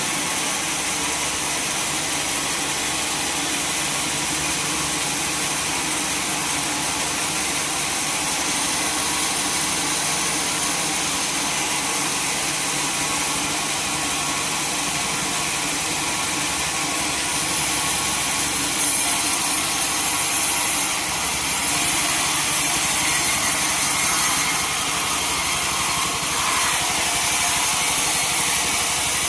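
Sawmill saw running through a log: a steady engine drone under the hiss of the blade cutting wood. The hiss gets louder and brighter about two-thirds of the way in.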